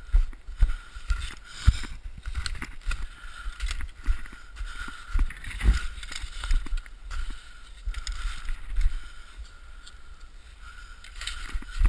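Wind buffeting a moving camera's microphone, an uneven rumble, with irregular knocks and rubbing from the camera being jostled, over a steady high whine.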